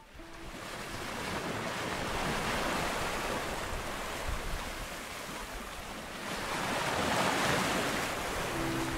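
Sea water rushing along a small sailboat's hull under way, with wind, a steady hiss that swells and eases twice.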